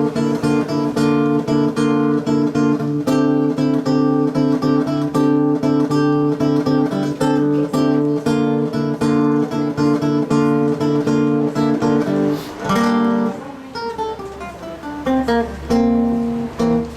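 Acoustic guitar strummed in a steady rhythm on held chords, with no singing: an instrumental break in the song. About twelve seconds in the strumming gives way to a falling run of notes, then the strumming comes back near the end.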